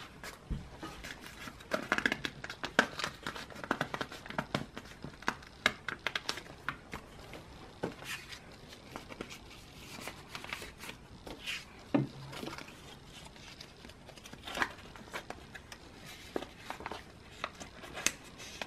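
Plastic card sleeves and binder pocket pages crinkling and rustling as photocards are slid into them, with irregular small clicks and taps.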